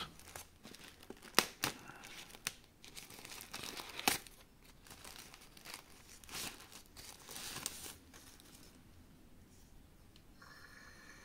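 Packaging wrapping crinkling and tearing as a small boxed accessory is unpacked by hand, with a few sharp crackles, dying down after about eight seconds.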